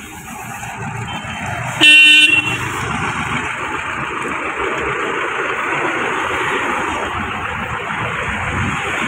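Mahindra Bolero Maxx pickup driving out and passing close by, its engine growing louder as it approaches. A short horn toot sounds about two seconds in and is the loudest sound, then the engine runs on steadily as the pickup goes by.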